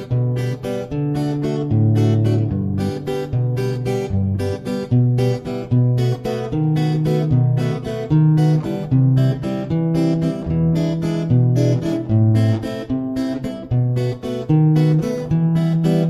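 Background music on acoustic guitar: a steady run of plucked and strummed chords over a moving bass line.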